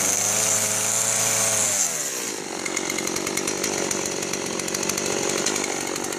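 Two-stroke chainsaw cutting into a pumpkin at full throttle. About two seconds in, the throttle is released, the pitch drops, and the saw idles with a fast, even putter.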